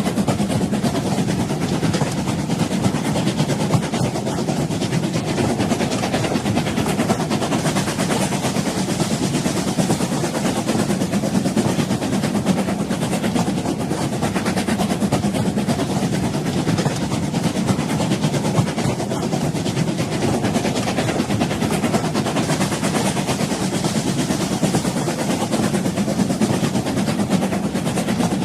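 Moving train running steadily, a continuous low rumble with dense rattling over it and no change in pace.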